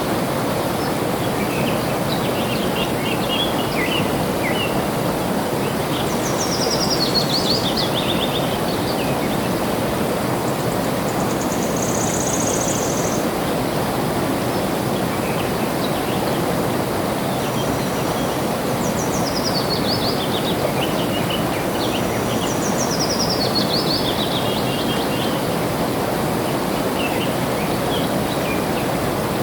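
Flowing water running steadily, with a bird singing quick runs of notes that fall in pitch, repeated every several seconds. A short, high, even buzz sounds a couple of times.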